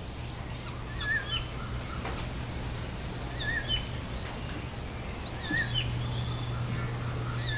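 A bird calling repeatedly, a short chirping call about every two seconds, over a steady low hum.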